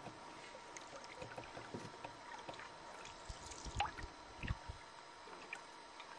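Canoe paddle strokes in calm water: small drips and splashes over a faint hiss, with two louder low thumps a little past the middle.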